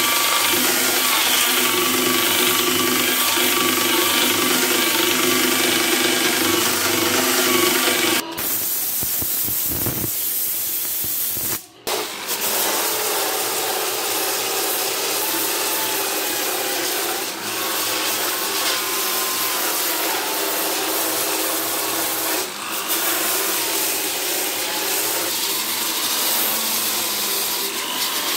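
Power sanding of a wood and epoxy resin surface with a motor-driven sanding disc. For the first eight seconds a disc sander whines at a steady pitch. After a break about twelve seconds in, an electric drill with a sanding-disc attachment runs, its pitch wavering as it is pressed against the surface.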